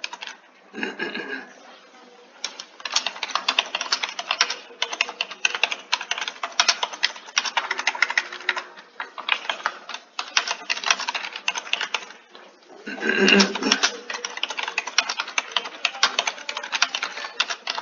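Typing on a computer keyboard: rapid, uneven runs of keystrokes, broken by a short pause about twelve seconds in before the typing resumes.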